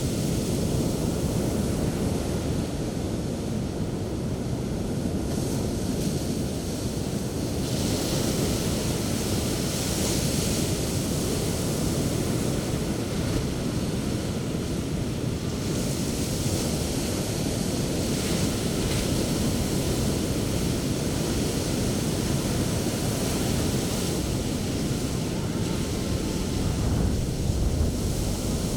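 Sea waves breaking on the beach and washing up as foaming surf, a steady deep rumble with surges of hiss as waves break, and wind buffeting the microphone.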